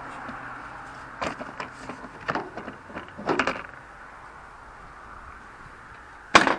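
Plastic scuttle panel below a car's windscreen being pulled free and handled: scattered clicks and creaks of plastic, then two sharp knocks near the end.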